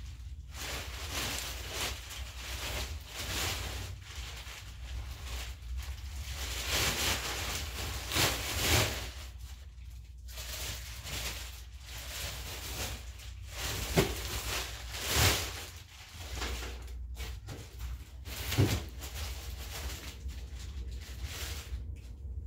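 Rummaging through a cluttered storage unit: plastic trash bags rustling and crinkling as items are shifted and bagged, with several sharper knocks and thumps of objects being moved. A steady low hum sits underneath.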